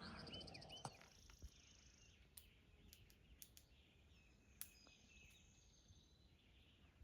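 Near-silent open-air ambience: faint bird chirps and a thin, high buzzing trill, with a few soft clicks scattered through.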